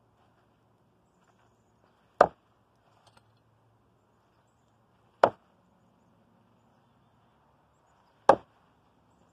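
Thrown blades striking a wooden log target three times, about three seconds apart, each a sharp single hit into the wood.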